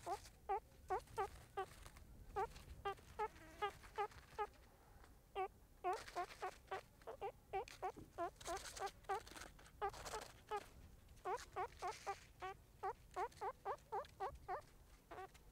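Meerkats calling: a string of short chirping calls, two or three a second, with a brief pause about five seconds in. Harsher, raspier calls are mixed in from about six to twelve seconds in.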